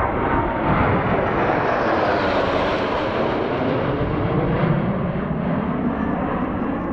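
Formation of four Sukhoi Flanker-type fighter jets passing overhead with a loud, steady jet roar. The hiss at the top of the roar is sharpest about three seconds in, then dulls as the jets move away.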